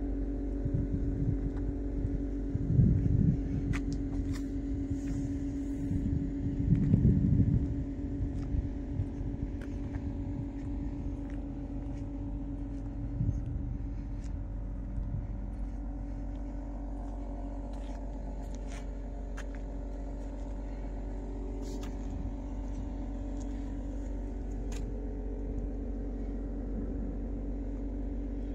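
A car engine idling steadily, a constant hum, with gusts of wind buffeting the microphone in the first eight seconds or so.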